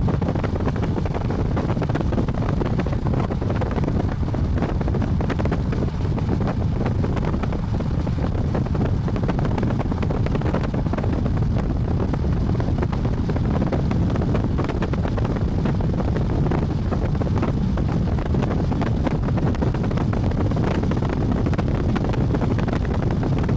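Steady low rumble of a moving vehicle with wind buffeting the microphone, even throughout with no distinct events.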